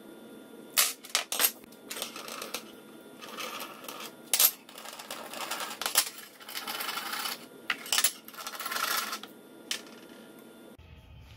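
Aluminium tubing handled on a workbench: sharp metal clinks as pole pieces and a tubing cutter are knocked and set down, with several stretches of metal-on-metal scraping.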